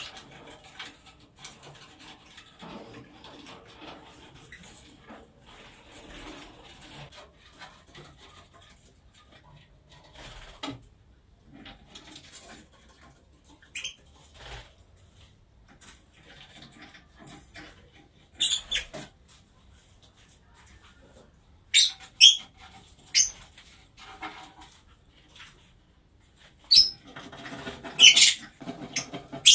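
Pet Fischer's lovebirds and budgerigars in their cage: faint rustling and wing flutters, then from about two-thirds of the way in a few sharp, short high-pitched chirps, the loudest near the end.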